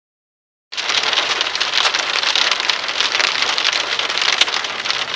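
Hail pelting a truck's metal body: a dense, loud, unbroken clatter of small impacts that starts abruptly under a second in.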